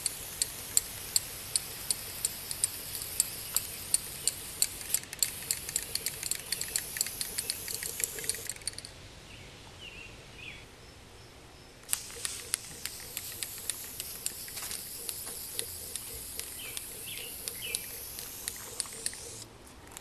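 Aerosol spray paint can spraying in two long bursts of hiss, the first about nine seconds and the second about seven and a half, with a pause of about three seconds between. Many sharp clicks run through the hiss.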